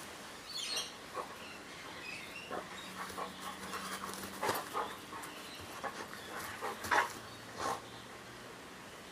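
A pet dog making many short, irregular noises, with the loudest about seven seconds in.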